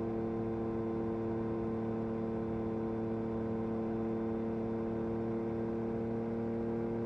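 Yamaha MT-09 SP's three-cylinder engine running at a steady, unchanging speed through an Akrapovič carbon racing exhaust, with no revving or gear changes.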